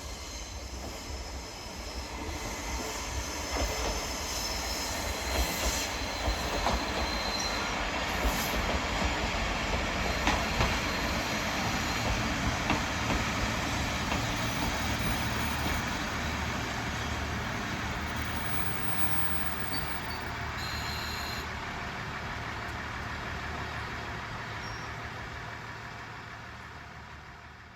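Kominato Railway diesel railcar running past on the line, a steady rumble with thin high wheel squeal early on. It builds over the first several seconds, holds, then dies away near the end.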